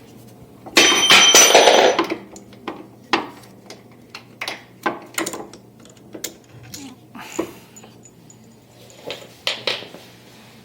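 Metal screws and hardware clinking and clattering as they are pulled out of a treatment table's drop section: a loud, ringing metallic rattle about a second in, then scattered light clicks and knocks.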